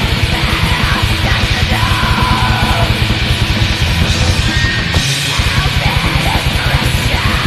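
Black metal: fast, relentless drumming under a dense wall of distorted tremolo guitar, with harsh shrieked vocals. The lowest drums drop out briefly about five seconds in.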